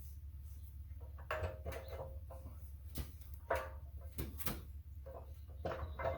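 Metal clunks and scraping as steel pipe is backed up in a Greenlee pipe bender, in a few separate knocks with brief ringing, the sharpest about three and a half seconds in.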